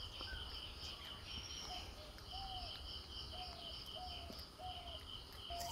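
Insects chirring in a steady high pulsing drone, with a bird giving about five short, arched whistled notes in a row from about two seconds in.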